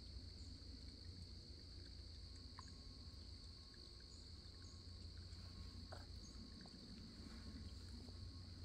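Near silence: faint outdoor ambience with a steady low rumble and a steady high-pitched drone, broken by a few faint ticks.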